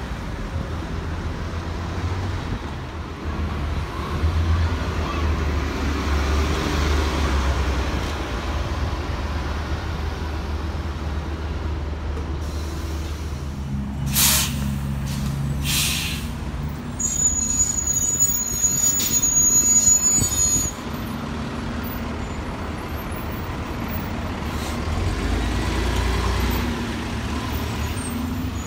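Diesel city buses running and pulling away in street traffic, the low engine rumble steady and swelling as they accelerate. Two sharp air-brake hisses come about halfway through, followed by a high whine for a few seconds.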